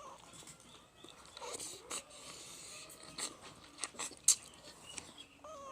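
Short falling animal calls right at the start and again near the end, with sharp eating clicks and smacks in between, the loudest about two-thirds of the way through.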